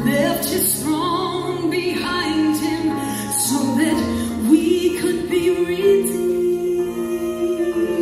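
Female soloist singing a Christmas song into a microphone over instrumental accompaniment, heard through a large hall's sound system; she holds one long note through the second half.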